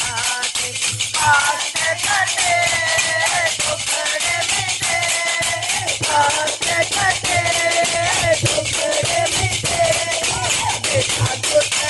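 A woman's voice singing a devotional Hindi bhajan in long held notes, over a fast, steady beat of rattling hand percussion.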